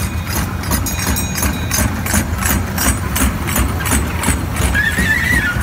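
Kiddie train ride running on its track: a steady low engine hum with an even clicking, about four clicks a second, that fades out shortly before the end.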